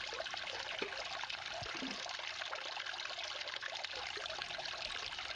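Water trickling steadily through a small homemade drop riffle sluice, with a few faint ticks. The riffles are clogged with unclassified minus-4 gravel that has shut the riffle action down.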